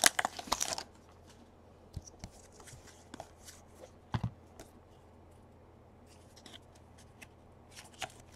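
Crinkling of a torn-open foil trading-card pack wrapper in the first second, then baseball cards being handled and flipped through by hand: faint, scattered taps and slides of card on card.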